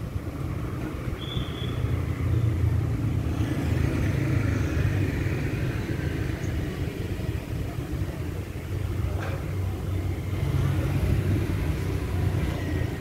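Road traffic: motor vehicles passing with a steady low engine rumble that swells twice as vehicles go by.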